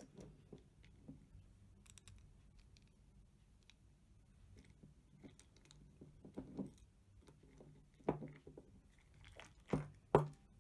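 Hard chunks of cocoa butter being picked out of a glass jar and set on a metal spoon: faint scraping and tapping, with a few sharper knocks near the end.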